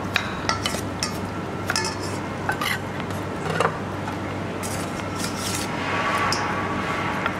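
Metal spoon clinking and scraping against a stainless steel mixing bowl in irregular strokes while tossing glass noodle salad.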